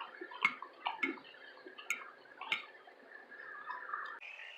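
Quiet eating sounds close to the microphone: a scattering of soft, irregular clicks and taps from chewing food and handling cutlery.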